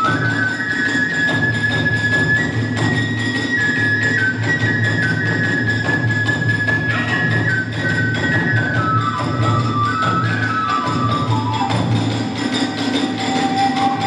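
Kagura accompaniment: a bamboo flute plays a melody that steps up and down in pitch and sinks lower near the end, over steady, dense drumming with small hand cymbals.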